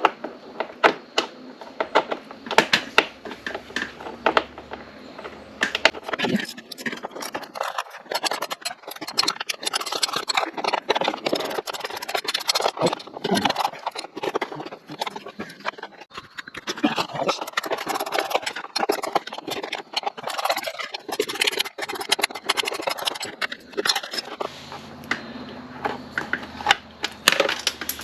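Irregular clicking, tapping and scraping of hand-tool work on a motorcycle's lower fairing, with a T27 Torx driver working on its screws.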